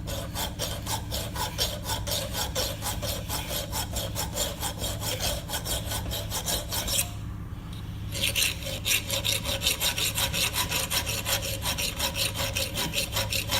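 Hand file rasping back and forth in quick, even strokes on the square end of a Stihl trimmer's steel drive shaft, pausing for about a second midway. The worn square is being filed back into shape so it fits snugly again.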